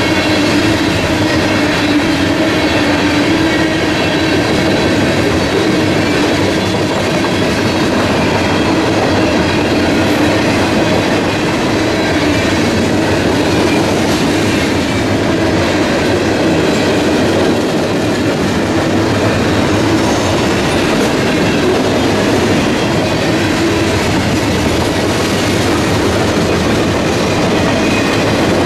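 Freight train cars rolling steadily past a grade crossing, their wheels clattering in a clickety-clack over the rail joints in a loud, unbroken rumble.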